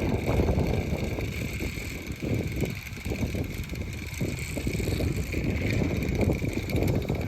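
Gusting wind buffeting the microphone as a low, uneven rumble that eases off a few seconds in and builds again, with a steady high whir from a homemade wind-driven fan spinning at over 1,200 RPM.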